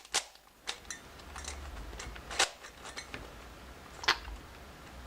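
Layers of a loosely tensioned Cyclone Boys 3x3x3 plastic speed cube being turned by hand, giving irregular sharp clicks several times a second, the loudest about two and a half seconds in and again about four seconds in.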